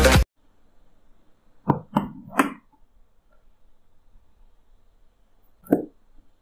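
Electronic music cuts off just after the start. Then come three quick short knocks about a second and a half in, and one more a little before the end, with little else between them.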